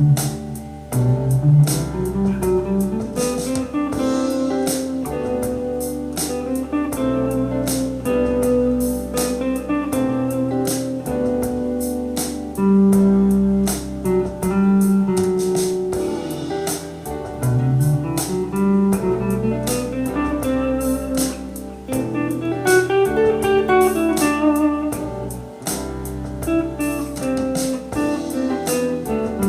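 Electric guitar through a Blackstar amp on its crunch setting with a little delay and reverb, improvising lead lines in E minor over a backing track with drums. Runs of notes climb and fall, with some held notes between them.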